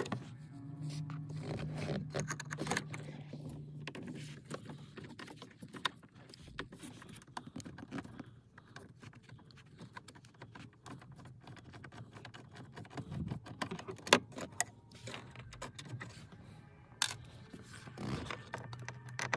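Small clicks, ticks and scrapes of a screwdriver turning out the screws that hold a Honda Civic's instrument cluster, with the plastic dash trim knocking now and then. There are sharper clicks about fourteen and seventeen seconds in.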